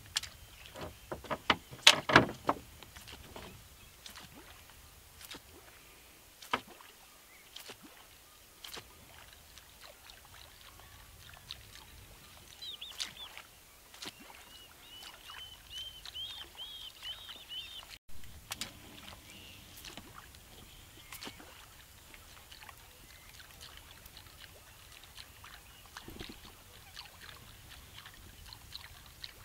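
Quiet open-water ambience from a small boat: scattered clicks and knocks, a cluster of louder ones about two seconds in, and a bird chirping in a quick series of short high notes for several seconds around the middle.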